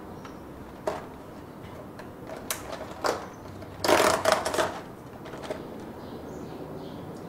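Small tabletop handling sounds: a few sharp clicks and taps, then a short flurry of clattering and rustling about four seconds in, as dishes and ice cream are handled at a coffee table.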